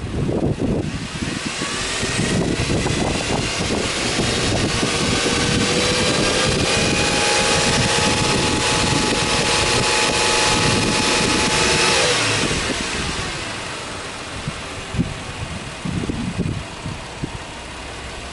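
Subaru Legacy B4 3.0R's EZ30 flat-six engine free-revved with the car standing: the revs climb over the first few seconds, are held steady high for about six seconds, then are let go about two-thirds through and drop back to a steady idle.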